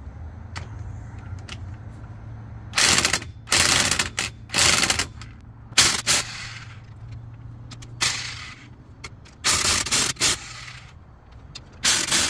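Corded electric impact wrench hammering in about seven short bursts, a second or so apart, starting about three seconds in, as it loosens a car wheel's lug nuts.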